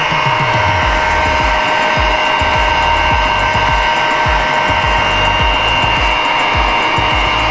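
Heat gun blowing steadily with a whine and hiss, post-heating vinyl wrap into recessed body creases to about 90 °C so the film keeps its shape. Background music with a heavy low beat plays over it.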